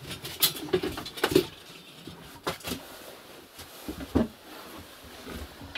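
Irregular knocks, scrapes and clatter as someone tugs and works at a stove damper that has been nailed shut, trying to pull it free.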